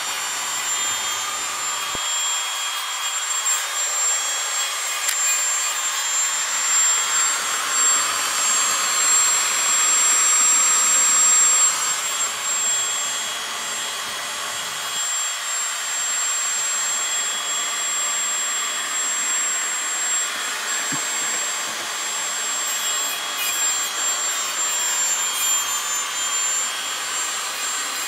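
Loud, steady machine noise from work going on behind the layout: a high whine over a hiss, a little louder for a few seconds before the middle.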